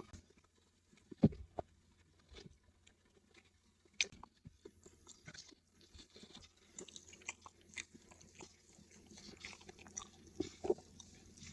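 A person eating close to the microphone: chewing with crisp crunches and wet mouth clicks. A sharp crunchy bite comes about a second in and another about four seconds in, then the chewing grows denser and busier.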